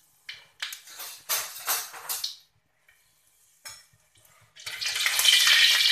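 Metal spoon stirring and scraping spice paste around an aluminium wok with a little oil: a few short rough scrapes in the first half, then a louder, longer stretch of scraping near the end.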